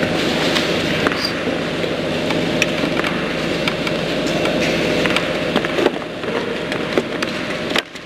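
Steady background noise of an indoor arena, a constant hum under a hiss, with scattered light clicks and knocks; the level drops off suddenly near the end.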